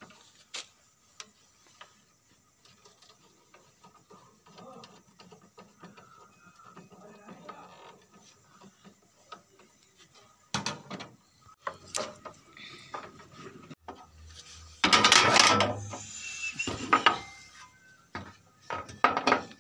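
Tools and hardware being handled at a metal electrical panel: faint scattered clicks at first, then sharper clicks and knocks. A loud scraping clatter lasts over a second about fifteen seconds in, and shorter ones follow near the end.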